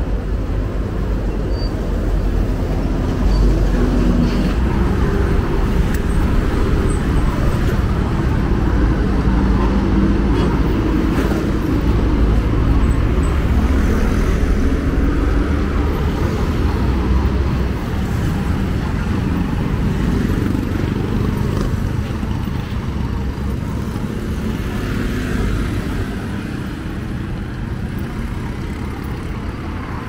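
Steady urban road traffic: passing cars and other motor vehicles, engines and tyres running together. It eases slightly over the last few seconds.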